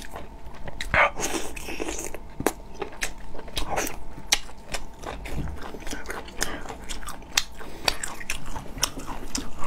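Close-miked biting and chewing of saucy braised bullfrog meat, with frequent short wet mouth clicks and smacks.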